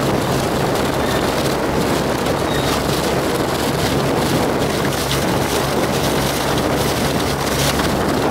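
Water rushing and spraying off the bow hydrofoil of a Volga hydrofoil motorboat running at speed, with a steady engine hum underneath.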